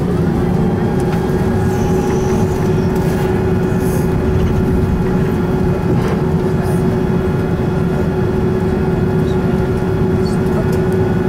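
Cabin noise of an Airbus A330 rolling along the runway after landing: a steady low rumble from the engines and the ride on the runway, with a steady hum running through it.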